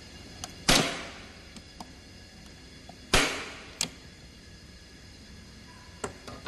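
Hand-operated staple gun firing twice, about two and a half seconds apart, each shot a sharp snap with a short ring. Faint clicks of the handle and mechanism come before and between the shots.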